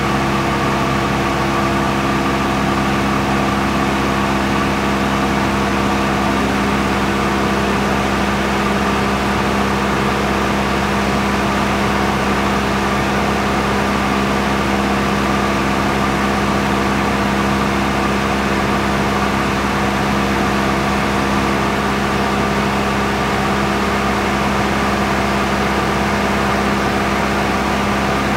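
Steady motor drone of the aircraft filming from overhead: an even, unchanging hum made of several steady tones over a rushing noise.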